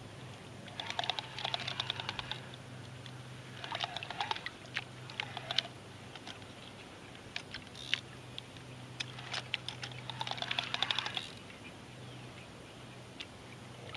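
A fishing reel clicking in about half a dozen short runs of rapid ticks, a second or less each, over a steady low hum.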